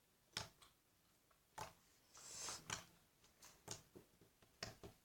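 Slime being poked with fingers: faint, short sticky clicks and pops, about one a second, with a brief soft squish in the middle.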